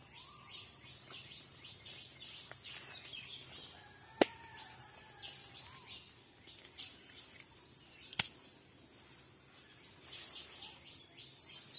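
Insects keeping up a steady high drone, with many quick falling chirps and a few soft bird calls over it. Two sharp clicks stand out, about four and eight seconds in.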